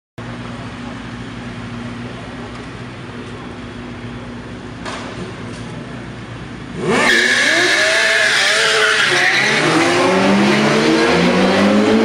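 Sport motorcycle engines idling with a steady low hum. About seven seconds in they rev hard and accelerate away, the engine pitch climbing in steps through several gear changes.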